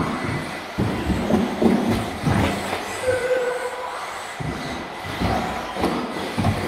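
Electric 2WD radio-controlled cars racing on an indoor track, with repeated clattering knocks and bumps. A short beep sounds about three seconds in.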